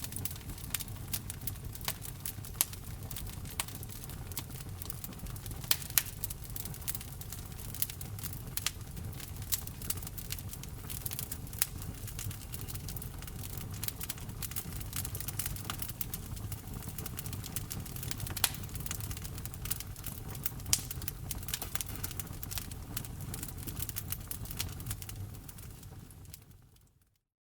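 Wood fire burning in a fireplace: irregular sharp crackles and pops of burning logs over a low steady rumble of flame. Near the end it fades out to silence.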